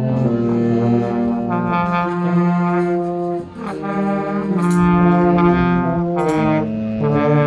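Brass instruments playing slow, sustained chords that change every second or so, with a brief break about halfway through.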